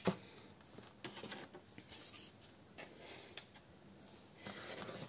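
Paper sheets, an HDF craft base and a steel ruler being handled in a cardboard box: one sharp knock right at the start, then faint scratchy rustling that grows near the end.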